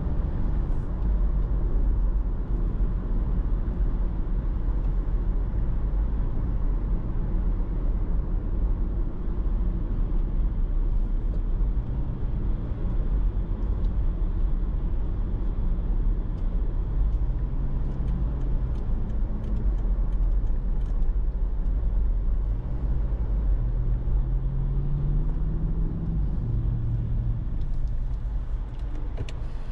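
Car driving in city traffic: steady low road and engine noise, with the engine note rising briefly a little past halfway as the car speeds up.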